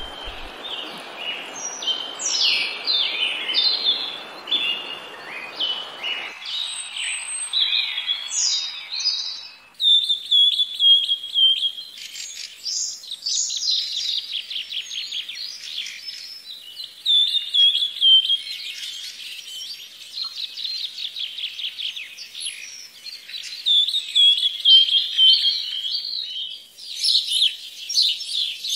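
Small songbirds chirping and trilling in quick high notes. A steady rushing noise runs beneath them for the first six seconds and then stops; about ten seconds in the song changes abruptly to fast, repeated trills.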